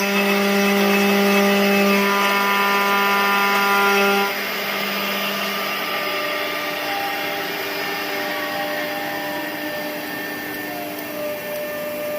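Aluminum profile CNC drilling-milling machine running, its spindle giving a steady machine whine of several tones. The whine drops in level suddenly about four seconds in, then goes on more quietly, with a tone sliding down in pitch near the end.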